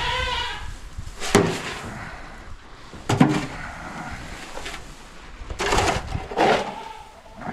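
A shovel scraping up chicken-coop litter and manure for the wheelbarrow: four short, harsh strokes a second or two apart. A goat bleats once at the start.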